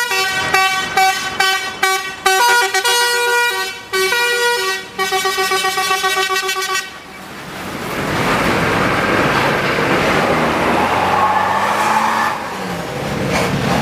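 Indonesian 'telolet' multi-tone musical bus horn playing a quick tune of short toots and held notes for about seven seconds. Then comes the steady engine and road noise of the bus.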